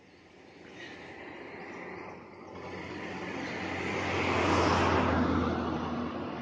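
A road vehicle passing by: its engine and tyre noise swells to a peak about five seconds in, then fades away.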